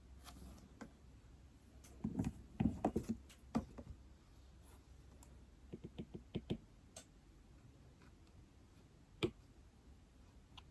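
Typing on an iPad: irregular runs of soft key clicks, a quick burst about two seconds in and a shorter one around six seconds, then single taps near seven and nine seconds.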